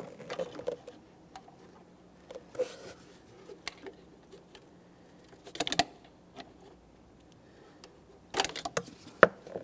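Small clicks, scrapes and rattles of a pick prying a plastic wiring-harness clip out of its metal bracket, with the sharpest clicks a little past halfway and again near the end as the locking tabs let go.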